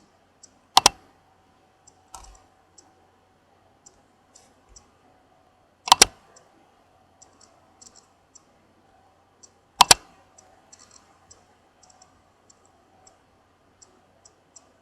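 Three sharp computer clicks about four seconds apart, each one running the list randomizer again, with faint light ticks in between.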